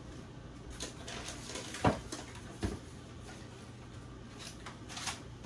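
A few soft knocks and clicks, about two seconds in, again shortly after and once more near the end, over a faint steady low hum.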